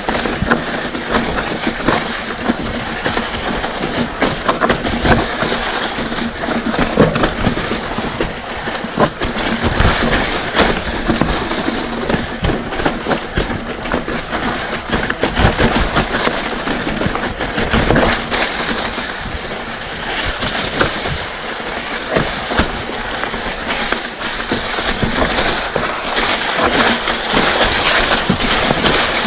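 Mountain bike rolling down a rough dirt singletrack: tyres grinding over dirt and rocks, with a constant rattle and frequent knocks from the bike.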